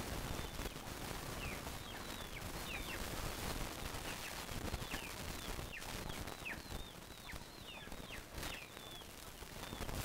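Chickens pecking feed from a plastic tray: rapid, irregular taps, with many short high chirps that fall quickly in pitch from birds.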